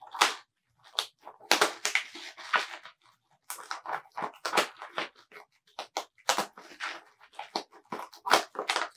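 Packaging being cut and torn open with stainless steel scissors: an irregular run of paper-and-cardboard rips and crunches, some of them drawn out for about a second.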